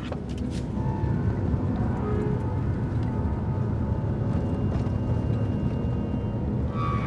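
Steady low rumble of a vehicle on the move, swelling over the first second and then holding, with a few sharp clicks near the start and faint music above it.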